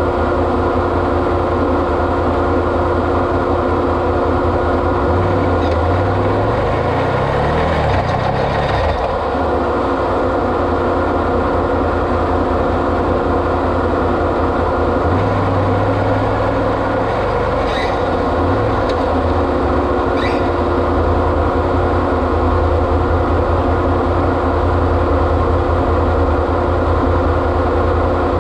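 Off-road vehicle's engine running steadily while driving, its low note rising and falling twice, about a fifth of the way in and again just past halfway.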